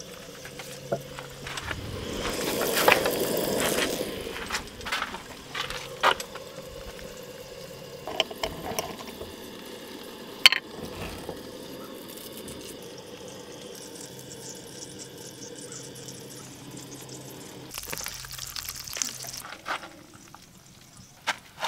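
Food-prep handling at a small wooden counter: a spatula, plates and utensils clicking and knocking, and a glass jar's metal lid coming off with one sharp click about ten seconds in. A short rustle comes near the end.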